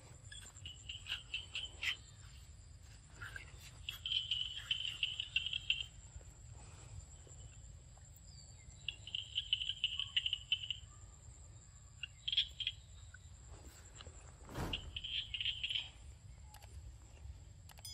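Dusk chorus of calling animals: a high-pitched trill that comes in bouts of one to two seconds, about five times, over a steady high whine. A sharp click sounds near the end.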